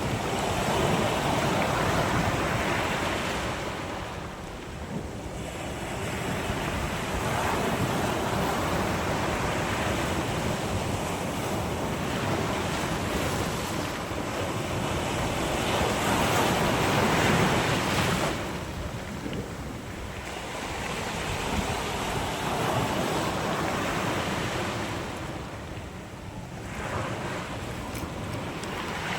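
Sea waves breaking and washing up the shore, the rush of water swelling and easing in slow surges with brief lulls between.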